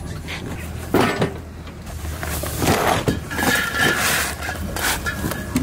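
Cardboard boxes of supplies being lifted, shifted and set down on a boat deck: irregular knocks, bumps and scuffs over a steady low hum.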